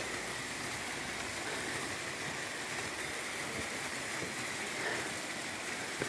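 Steady rushing and splashing of a small waterfall pouring into a pool.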